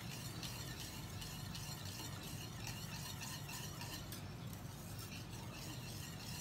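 Wire balloon whisk stirring a thick milk-and-melted-chocolate mixture in a stainless steel saucepan, clinking and scraping against the pan in quick, evenly repeated strokes, over a low steady hum.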